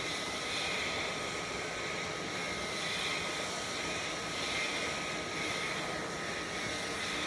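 Steady rush of fan-driven air from a workbench blower, with a faint constant whine.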